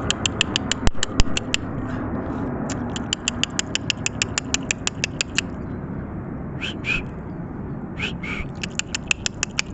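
Rapid runs of sharp clicks, about six a second, made to call deer over, broken off in the middle, where two short harsh calls are heard; two louder knocks come about a second in.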